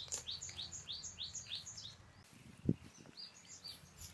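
A bird chirping in a quick series of short, high notes, about four or five a second, which pauses for a moment and then starts again. A single dull thump comes a little past halfway.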